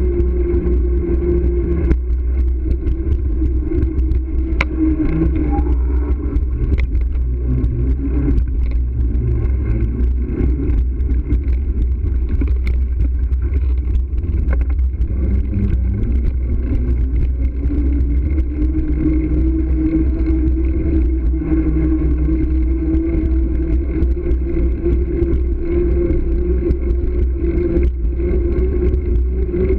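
Steady rush and low rumble of wind buffeting a bike-mounted camera's microphone while cycling, with a wavering hum that grows stronger in the second half.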